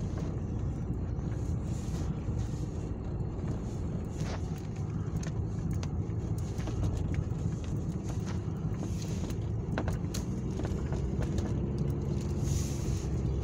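A car moving slowly on a snowy road, heard from inside the cabin: a steady low engine and road rumble, with a few faint clicks and knocks.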